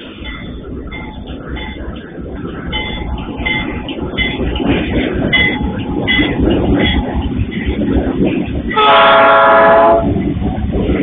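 Freight train's MRS diesel locomotives passing close, their engine rumble growing louder as they come by, with a level-crossing warning bell pulsing about twice a second. Near the end the locomotive horn sounds one steady blast of just over a second, the loudest sound.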